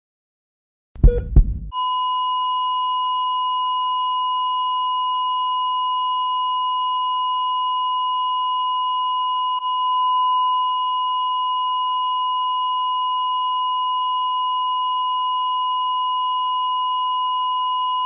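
ECG heart-monitor flatline sound effect: two quick low thumps, then one unbroken steady high beep, the monitor's signal that the heart has stopped (asystole).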